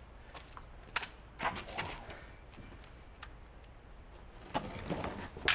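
A few sharp, scattered clicks and taps: one about a second in, a small cluster just after, and several more near the end, the loudest at the very end.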